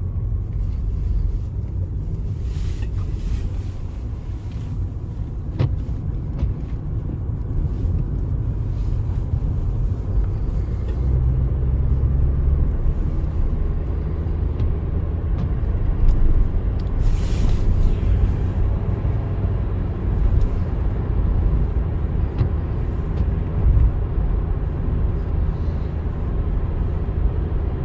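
Steady low road and engine rumble heard from inside a moving vehicle, with two brief hissing swells, about three seconds in and again about seventeen seconds in.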